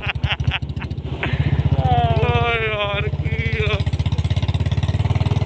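Royal Enfield Bullet's single-cylinder engine running as the motorcycle is ridden, a steady fast thudding exhaust beat that grows louder about a second in.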